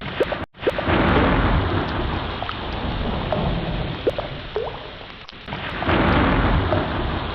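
Heavy rain with rolling thunder, the rumble swelling about a second in and again about five and a half seconds in. There are short plinks of drops over the steady downpour, and the audio cuts out briefly about half a second in.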